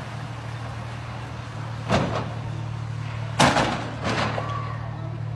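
A steady low hum, like a running engine, with three sharp knocks about two, three and a half and four seconds in.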